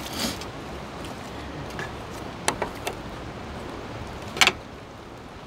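A few sharp clicks over a steady background hiss: three close together in the middle and a louder one near the end.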